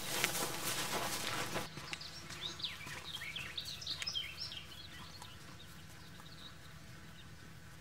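Footsteps rustling through tall grass, cut off abruptly about a second and a half in. Then small birds chirp in quick, high calls for a few seconds before fading.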